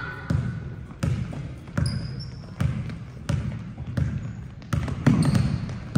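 A basketball being dribbled on a hardwood gym floor: steady bounces about every 0.7 seconds, each echoing briefly in the hall.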